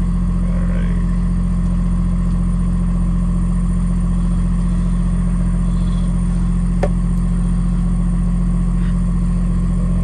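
Box truck engine idling steadily while it warms up, heard from inside the cab as a low, even drone. A single sharp click comes about seven seconds in.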